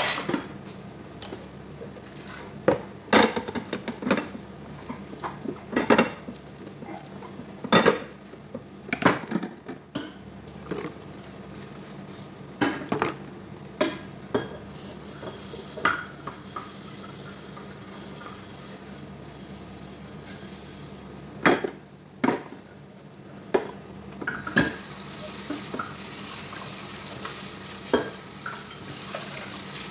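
Stainless steel pots, pans and dishes clanking and clinking against each other and the sink as they are washed by hand, in irregular knocks. Near the end the tap runs steadily, splashing into a metal saucepan.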